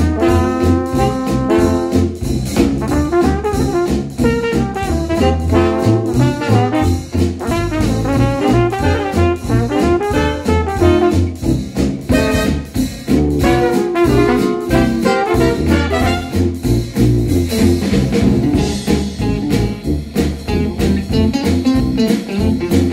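Retro jazz band music with brass horns, trombone and trumpet, over a steady swing beat, played back through Wharfedale bookshelf speakers driven by a Cambridge Audio AXA25 amplifier.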